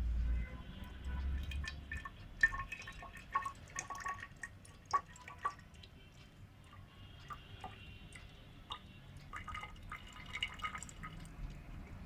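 Water separated from polymer-flocculated drilling slurry pouring and dripping into a glass graduated cylinder. A low pouring sound for the first two seconds or so gives way to irregular small drips.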